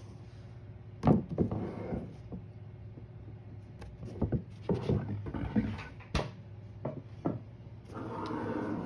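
Handling noises: a sharp knock about a second in, a run of light knocks and short rustles in the middle and a rustle near the end, over a steady low hum.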